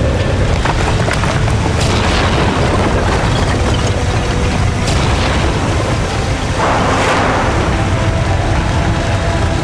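Tunnel boring machine's rotating cutter head breaking through a concrete wall: a steady deep rumble with three crashes of falling concrete, the last and largest about seven seconds in.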